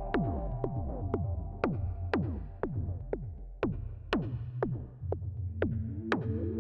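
Electronic music played on Moog analog synthesizers: a percussive hit twice a second, each dropping sharply in pitch, over a sustained low bass drone and a held chord. The chord shifts to new pitches about five and a half seconds in.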